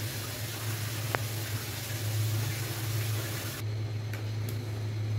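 Steady hiss and low hum from a gas stove burner heating an empty karahi, with one small tick about a second in. The hiss thins out a little past halfway.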